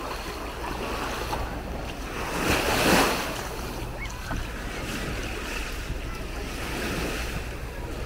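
Small Baltic Sea waves washing on the sand at the water's edge, with wind on the microphone; the sound swells louder about three seconds in.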